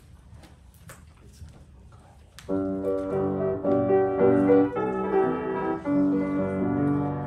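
Piano starts playing chords about two and a half seconds in, after a quiet stretch with a few faint knocks.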